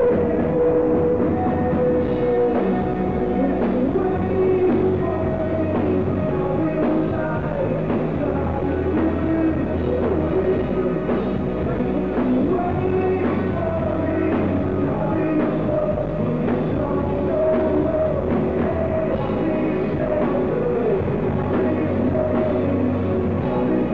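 Live rock band playing: male vocals over electric guitar, electric bass and a drum kit, heard from the audience.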